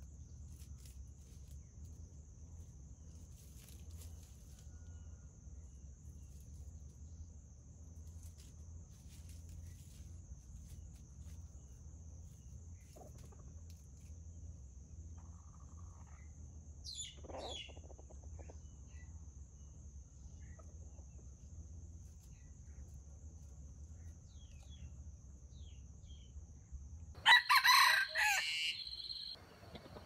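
A rooster crowing once, loud and lasting about two seconds, near the end. Before it there is a steady high-pitched drone with a low rumble underneath, a few faint bird chirps and a fainter call about halfway through.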